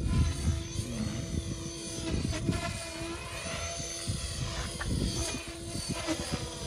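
A 550-size electric RC helicopter flying overhead: the steady pitched whine of its motor and spinning rotor blades, its tone sweeping as it moves about the sky.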